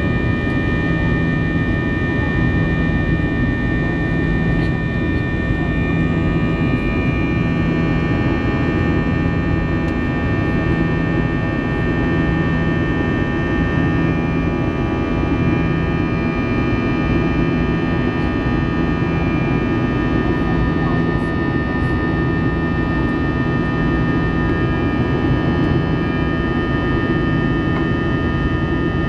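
Jet airliner cabin noise in flight after takeoff: the turbofan engines and airflow heard through the fuselage as a steady, loud noise, with several high steady whining tones and a low hum that swells and fades every second or two.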